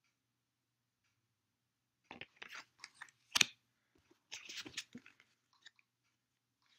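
Tarot cards being handled as the next card is drawn from the deck: after a quiet start, a few seconds of small scattered clicks and rustles of card stock, with one sharper snap near the middle.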